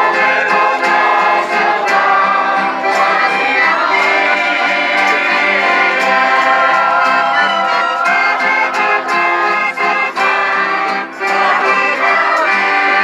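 Live folk music from a piano accordion and strummed acoustic guitars, played together at a steady pace, with voices singing along.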